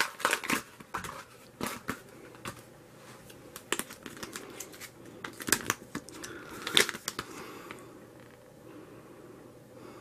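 Plastic packaging and a folded paper instruction leaflet being handled and unfolded: scattered crinkles, rustles and small clicks, thinning out in the last couple of seconds.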